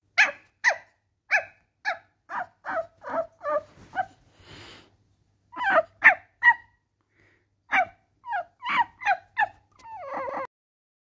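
A person imitating a puppy with their voice: a string of short, high yips about two a second, a breathy sound, then more yips after a short pause, ending in a longer wavering whimper.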